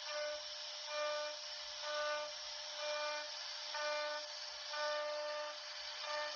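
Background music: a short pitched phrase repeating about once a second over a held tone, with a steady hiss underneath.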